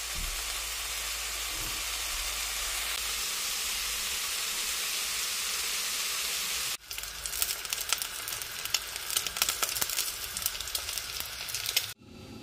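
Noodles and vegetables frying in a nonstick saucepan: a steady sizzle at first, then about seven seconds in a rougher, crackling sizzle with many small pops, which cuts off just before the end.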